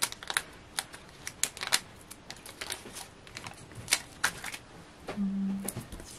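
Paper and thin card being handled by hand: a run of light rustles and small sharp clicks as foam-pad backing paper is peeled off and die-cut card pieces are pressed down.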